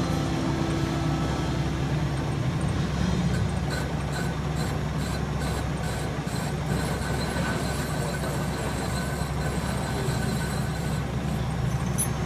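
Metal lathe running, a steel pipe spinning in the chuck while the tool bit takes a bevel cut across its end, fed by hand with the compound slide: a steady machine hum and cutting noise, with light regular ticking for a few seconds in the middle.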